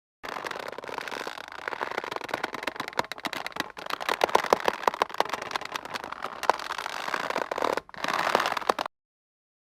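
Taut rope creaking and squeaking under strain: a long run of fine, crackly creaks with sharper squeaks in the middle, then a shorter, louder burst of creaking that cuts off about a second before the end.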